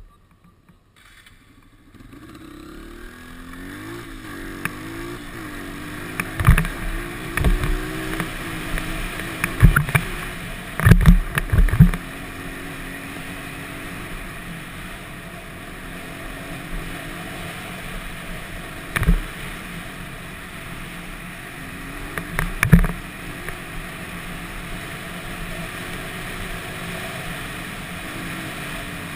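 An off-road vehicle engine running at a steady cruising pace along a gravel track, coming in about two seconds in, with wind noise over the microphone. Sharp thumps from the ride over bumps break in several times, clustered in the middle and twice more later.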